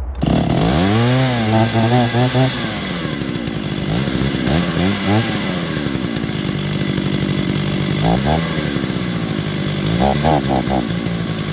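Small two-stroke chainsaw engine revving up sharply, then idling between short throttle blips. It runs unevenly while its carburettor's fuel mixture is being adjusted, and the running is still borderline.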